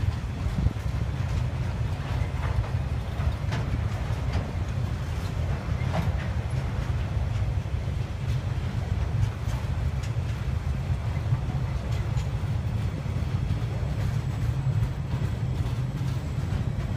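TasRail container freight train's loaded flat wagons rolling past on the track, a steady low rumble broken by scattered faint wheel clicks.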